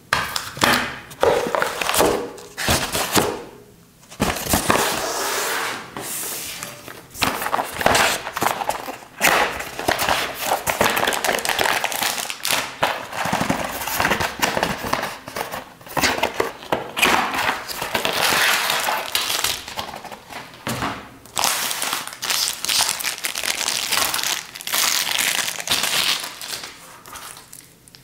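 Cardboard box, foam insert and plastic wrapping being handled in an unboxing: irregular rustling and crinkling with light knocks, a short lull about four seconds in, dying away at the end.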